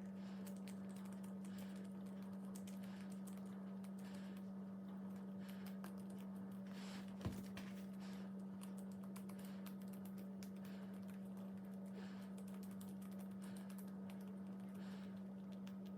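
Faint irregular clicks and soft sticky crackles of black slime being pulled apart and pressed by hand, with one sharper tap about seven seconds in, over a steady low hum.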